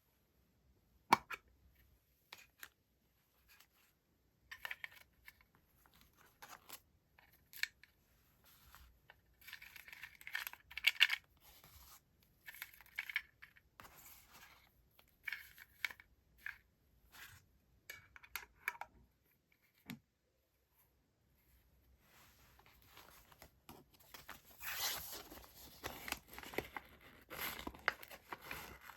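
Close-up paper rustling and tearing as stationery items are handled: scattered short rustles and light taps, a brief pause about two-thirds of the way through, then denser, steadier rustling near the end.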